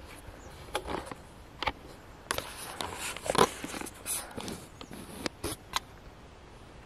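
Irregular crunching and rustling of a walker's footsteps, a dozen or so uneven clicks and scuffs, dying away about six seconds in as the walker comes to a stop.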